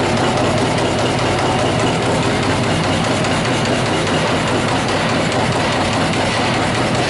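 TRUMPF TRUMATIC 500 CNC punch press working sheet steel, its ram striking in a rapid, continuous string of punch strokes.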